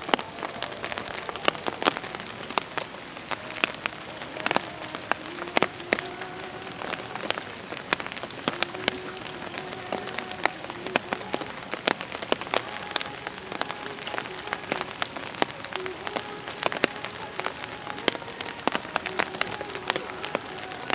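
Steady rain falling, with many sharp drop impacts close by scattered throughout.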